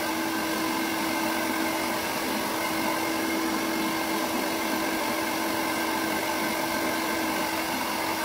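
Handheld hair dryer blowing steadily: a constant rush of air over a steady motor hum.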